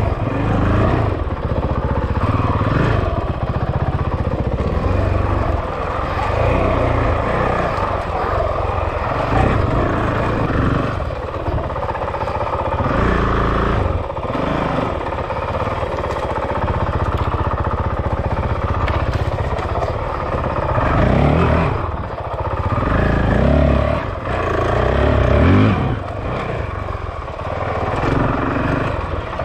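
Honda CRF450L's single-cylinder four-stroke engine running under way, the throttle opening and closing so the engine note rises and falls every few seconds.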